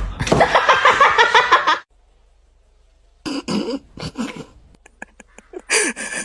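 Dog sounds from pet clips, in short bursts, broken by a silence of about a second and a half about two seconds in.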